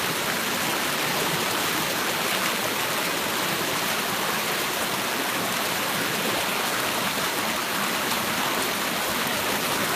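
Shallow rocky stream rushing and splashing over and between boulders, a steady rush of water close by.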